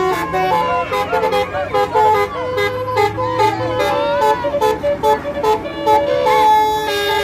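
Basuri-style multi-tone musical bus horn ('telolet') playing a fast, choppy melody of short stepped notes. Repeated wavering, snaking pitch slides run between the notes.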